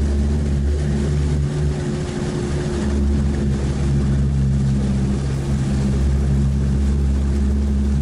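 Engine of an amphibious all-terrain swamp vehicle running steadily under load, heard from inside the cab as the vehicle pushes through reeds and shallow marsh water.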